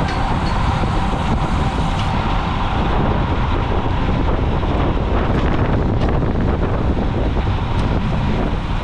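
Steady, loud wind rush buffeting the microphone of a camera on a road bike riding at racing speed in a pack, with a few faint ticks about five to six seconds in.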